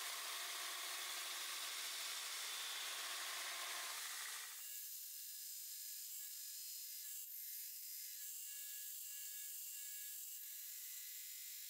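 Belt grinder running with a steel knife blade held against the belt, grinding its profile in a steady, even hiss. About four and a half seconds in the sound thins to a quieter, higher hiss with a faint steady hum.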